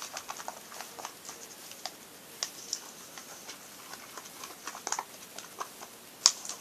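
Homemade slime (glue, shampoo and foot talc) being stirred in a small pot: irregular, quick sticky clicks and ticks.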